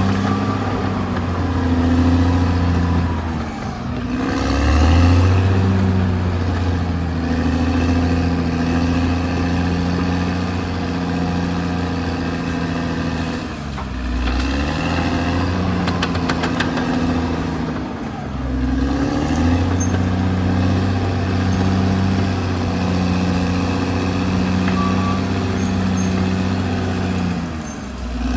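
Caterpillar D6R XL bulldozer's diesel engine working steadily. Its engine speed sags and picks back up three times, about 4, 14 and 19 seconds in, as the dozer takes load or changes direction.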